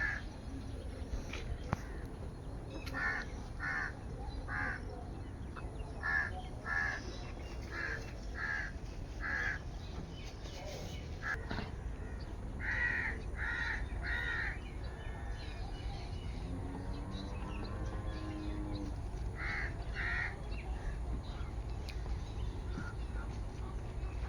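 Crows cawing in repeated short runs of two or three harsh caws, over steady low background noise. A lower, drawn-out call rises and falls about two-thirds of the way through.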